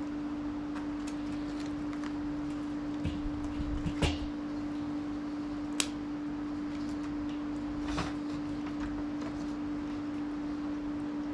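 Freshly lit wood fire in a wok-shaped fire pit crackling, with a few sharp pops scattered through, over a steady low hum.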